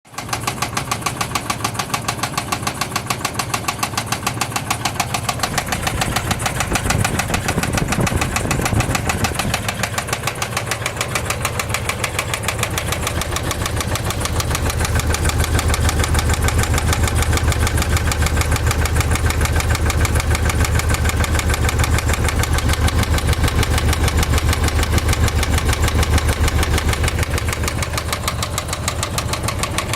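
2004 Dodge Durango's 5.7-litre Hemi V8 running with a loud, fast, even ticking from the engine. The engine's low note grows louder about halfway through.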